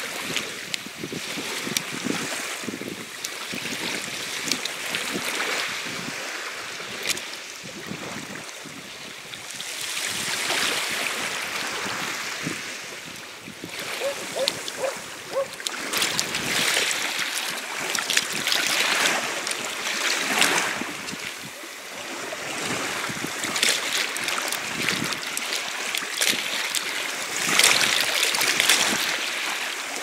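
Small sea waves lapping and washing over a shingle shore and around a screw-generator housing held in the shallows, swelling every few seconds.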